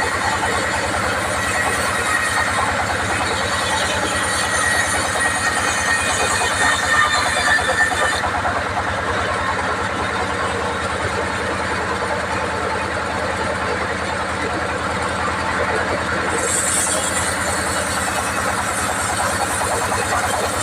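Sawmill band saw machinery running steadily and loudly, with a fine low mechanical pulse. The higher hiss drops away about eight seconds in.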